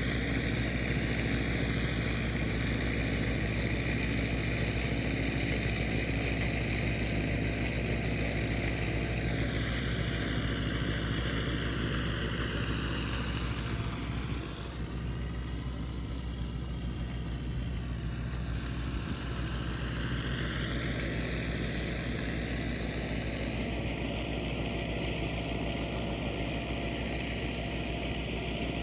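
An engine running steadily, with a high whine above it; for several seconds around the middle the sound becomes duller as the high end drops away, then returns.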